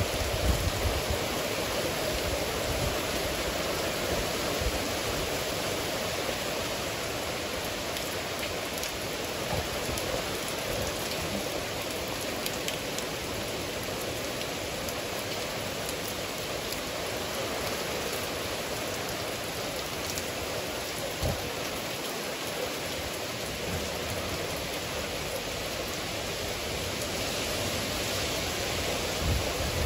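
Rain falling steadily in a thunderstorm, an even rushing hiss that holds the same level throughout, with a few brief low knocks near the start.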